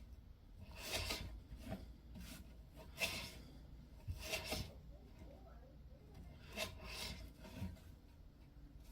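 Faint, irregular rubbing and scraping strokes, about eight short ones, from handling a pocket multitool.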